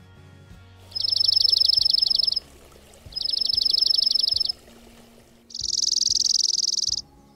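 Dark-eyed junco singing its trill song three times, each a rapid run of identical notes on one high pitch lasting about a second and a half, the third faster and buzzier.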